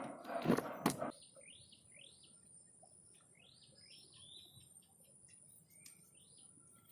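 A wild bird calling in a series of short, quickly rising whistled notes, some in quick pairs and runs. In the first second there is louder rustling with a few sharp clicks, and a steady thin high tone runs underneath the calls.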